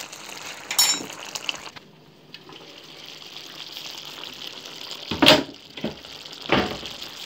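Chicken and vegetables simmering in a thick sauce in a frying pan, a steady bubbling hiss. A light clink about a second in and two louder knocks in the last couple of seconds.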